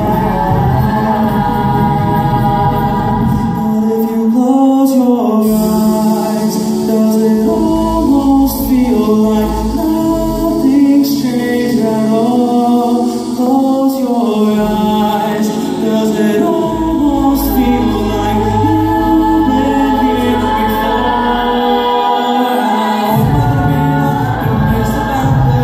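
A cappella vocal group singing in layered harmony, with held and shifting chords over a low sung bass line that drops in and out.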